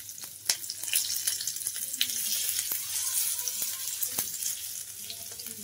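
Stuffed okra pods sizzling in hot oil in a kadai on a low flame: a steady hiss with scattered crackles.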